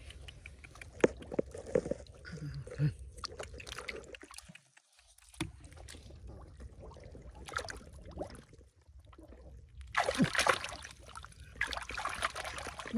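Shallow water sloshing and splashing in irregular bursts, with scattered small knocks. The splashing is loudest about ten seconds in and again near the end.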